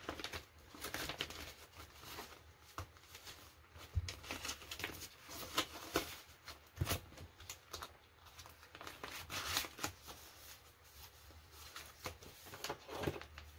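Paper banknotes and a plastic cash envelope rustling and crinkling as bills are handled and slid into a binder, with a few soft knocks among the rustles.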